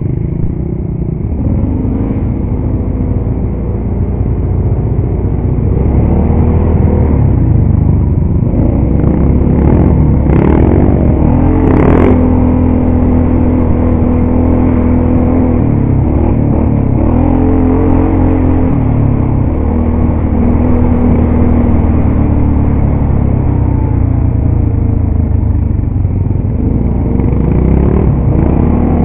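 Quad ATV engine running under load on a rough dirt trail, its note rising and falling with the throttle. Two sharp knocks about a third of the way in.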